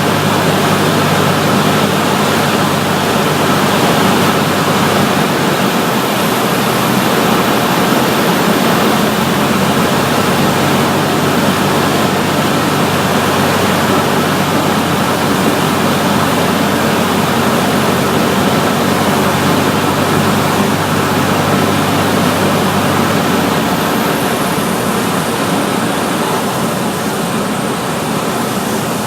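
Cessna 152's four-cylinder Lycoming O-235 engine and propeller running steadily under a loud, even rush of wind noise. The low engine hum drops away about four seconds before the end.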